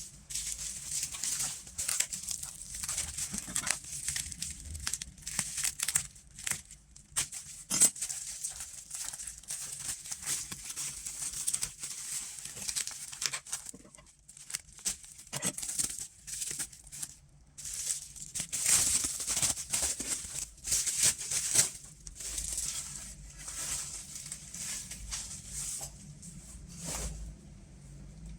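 Packaging of a vinyl LP being handled and unwrapped: irregular bursts of crinkling and rustling, some louder than others.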